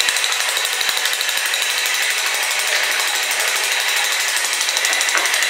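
Little Tikes STEM Jr. Builder Bot toy robot's battery-powered motor running, a steady, fast, high-pitched mechanical rattle as it drives along.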